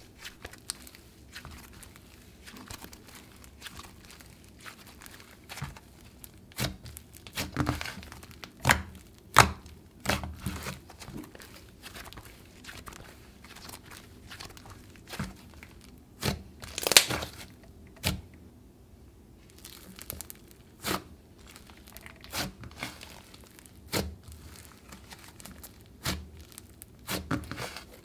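Thick cloud cream slime with green clay mixed in being stretched, folded and pressed by hand, giving soft tearing and crinkling sounds with irregular sharp pops. The loudest pop comes a little past halfway.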